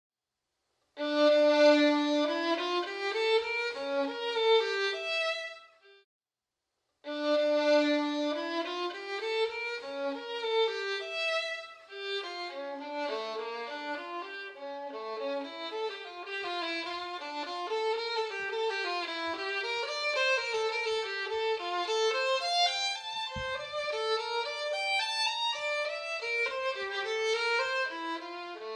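Instrumental background music carrying a single melody line. It starts about a second in, breaks off near six seconds and resumes about a second later.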